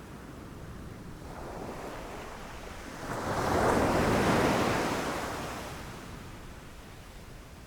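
Ocean surf: a wave rushes in and breaks about three seconds in, swelling to a loud crash and washing out over the next couple of seconds, with quieter rushing water either side.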